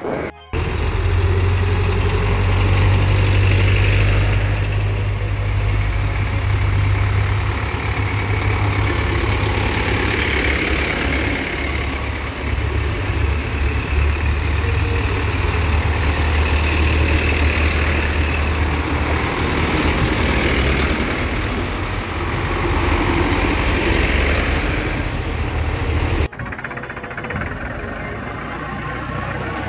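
Hürlimann tractors' diesel engines running, a steady low engine drone. It cuts abruptly to a quieter engine sound near the end.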